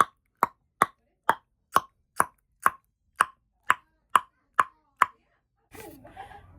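Tongue clicks made with the mouth as a vocal sound effect: about a dozen sharp, evenly timed clicks, roughly two a second, stopping about five seconds in, then a faint breath.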